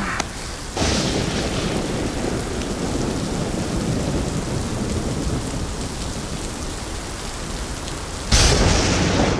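Steady rain falling in a rainstorm, then a sudden loud clap of thunder near the end.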